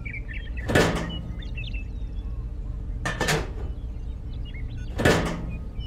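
Plastic parts of a toy tractor model clattering as they are handled and fitted: three short noises about two seconds apart, over a low steady hum.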